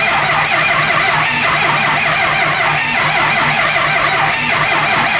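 Starter cranking a 6.0 Powerstroke V8 turbodiesel steadily without it firing. This is a no-start that the mechanic takes to be more than likely a failed high-pressure oil pump, ICP sensor and IPR valve.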